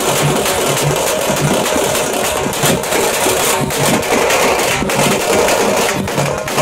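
Loud festival drumming with a steady beat, under a dense din from the packed, dancing crowd.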